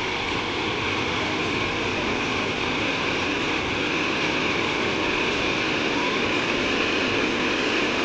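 Water of a small rocky waterfall rushing and splashing over boulders: a steady, unbroken roar of falling water.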